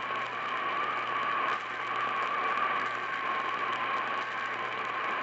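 Radio receiver picking up a weak, distant station: a steady hiss of static with a wavering whistle-like tone just above 1 kHz and a low hum underneath.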